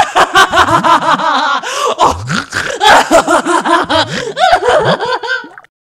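A long, mocking laugh in a female voice: a quick run of short 'ha' pulses, about four or five a second, that cuts off near the end.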